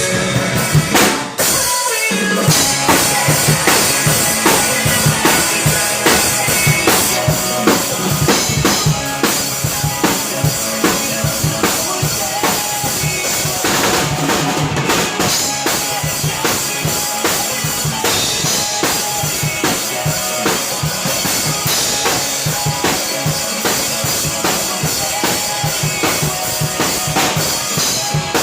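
Acoustic drum kit played live along with a recorded pop song, with steady bass drum and snare strokes over the backing track and a brief break about a second and a half in.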